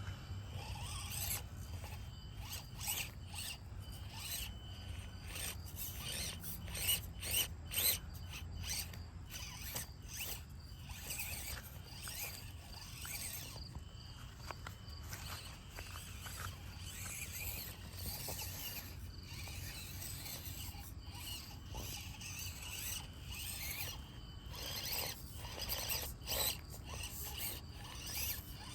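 RC crawler driving in short stop-and-go bursts: the small electric motor and drivetrain give a high-pitched zipping whir each time it moves.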